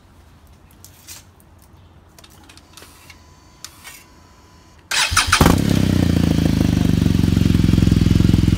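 Faint handling sounds for about five seconds, then a BMW R1200GS Adventure's liquid-cooled boxer twin starts. It catches after a brief burst of cranking and settles straight into a loud, steady idle through a Beowulf slip-on exhaust with its silencer baffle removed.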